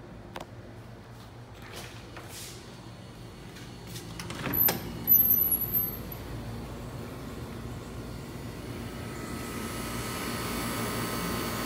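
A door being unlatched and swung open, with a sharp click and a short high squeak, followed by a steady outdoor hum that grows a little louder near the end.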